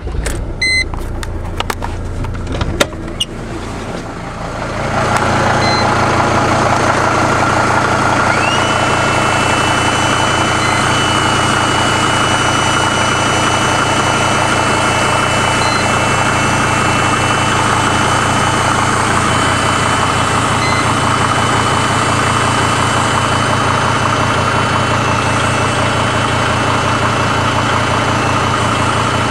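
Mercedes-Benz E290's OM602 five-cylinder turbodiesel running steadily at idle while cold, a few clicks early on before it settles to a steady, louder run about five seconds in. A faint steady whistle joins about eight seconds in, which the owner puts down to the Webasto heater whistling during warm-up; he suspects the engine has a knock but is unsure.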